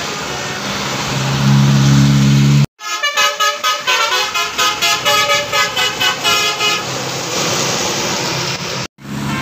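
Road traffic with a deep, steady horn held for about a second, then a multi-tone bus 'telolet' horn playing a quick, pulsing tune of several notes for about four seconds over passing traffic.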